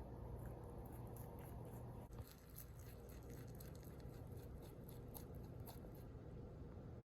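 Quiet room tone: a steady low hum with faint, scattered small clicks. It cuts off abruptly near the end.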